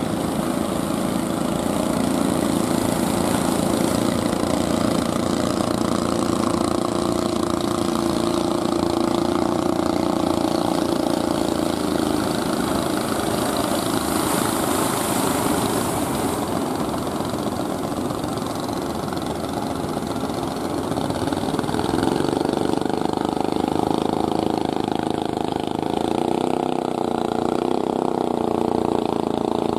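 Fishing boat engines running steadily as several small outrigger boats and larger fishing boats motor through the surf, the engine tones shifting in pitch in the second half as boats pass.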